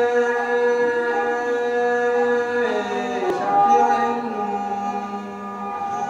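Bowed folk fiddle with a round, bowl-shaped body played in long held notes, the pitch changing a little under halfway through.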